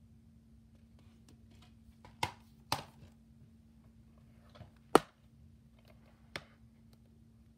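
Plastic DVD cases being handled: a few sharp clicks and snaps, two close together a little after two seconds in, the loudest about five seconds in and a smaller one near the end, over a faint steady hum.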